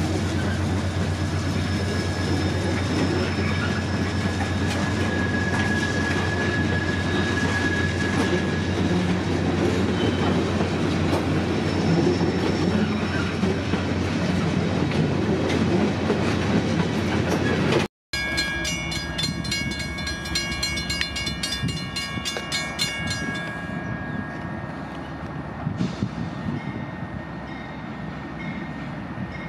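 Loaded freight train passing close by behind Norfolk Southern and CSX diesel locomotives: a dense low rumble with the wheels clattering over the rails. About two-thirds through the sound cuts off suddenly, then comes back quieter, with several steady high tones that repeat evenly for a few seconds and then fade.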